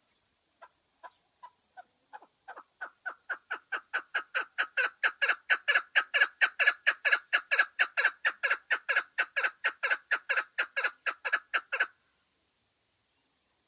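Chukar partridge (lal keklik) giving its rally call: a run of clucking 'chuck' notes that begin soft and widely spaced, then speed up and grow louder to about four a second, and stop abruptly shortly before the end.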